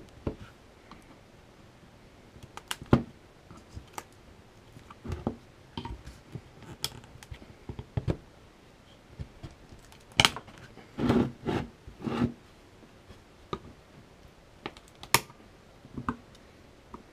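Hard plastic battery-pack shell being worked and pried to free the cell pack inside: irregular clicks, knocks and scrapes, with a busier run of knocks a little past the middle.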